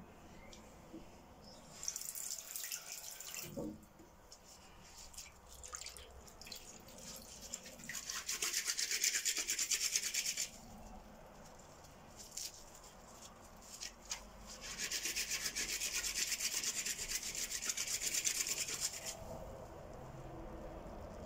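Wet hands rubbing together briskly in three spells of quick scrubbing strokes, the last and longest lasting about four seconds, with softer rustling between them.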